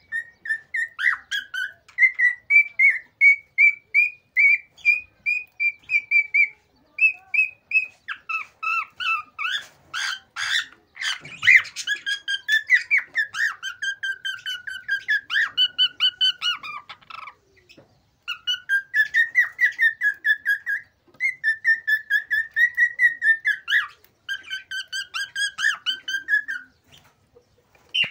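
Male cockatiel singing excitedly: rapid runs of short whistled notes, several a second, in phrases broken by brief pauses, with a few harsh squawky notes about ten seconds in.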